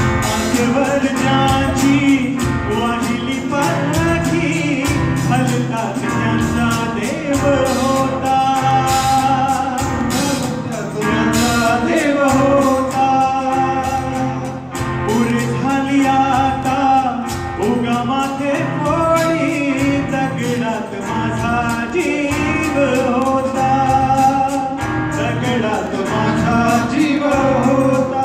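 Live band music with two men singing a Marathi song, backed by electric and acoustic guitars, keyboard and drums keeping a steady beat.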